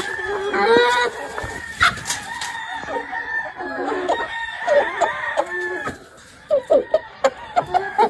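Flock of chickens, hens and a rooster, calling over one another: clucking with drawn-out crowing calls, and a quick run of short clucks near the end.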